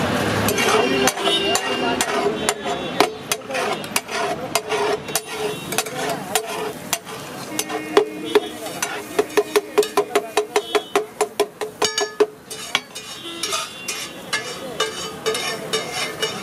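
Steel spatulas clanging and scraping on a large flat iron tawa as tomato-and-pea masala is stirred and chopped, with a quick run of ringing strikes about four a second in the middle.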